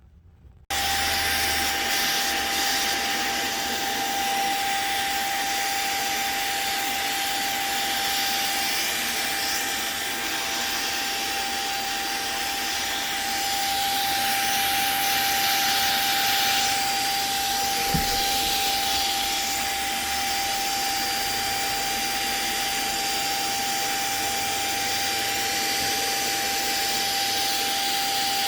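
Vacuum cleaner switched on about a second in and running steadily with a constant whine, sucking built-up dust out of a desktop PC's CPU heatsink. A single brief knock about midway.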